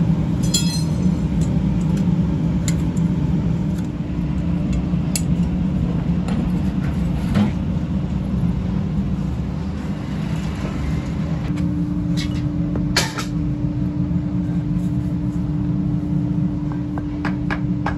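A steady low mechanical drone of workshop machinery, joined by a steady tone about two-thirds of the way in. Scattered sharp metal clinks come from steel sand-casting flasks being handled and set down.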